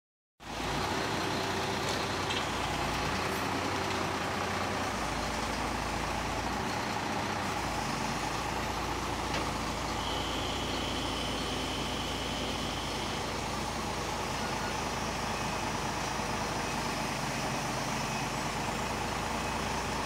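Truck-mounted hydraulic knuckle-boom crane working under radio remote control: the truck's engine runs steadily, driving the crane hydraulics, its low hum shifting several times in the first eight seconds. A steady high tone sounds for about three seconds midway.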